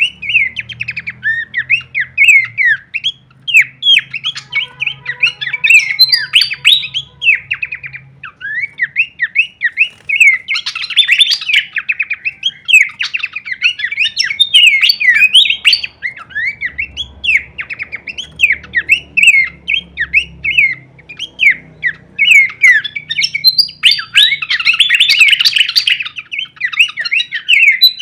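Pelanduk semak babbler singing a rapid, nearly continuous run of varied sharp chirps and squawky notes, with only brief pauses.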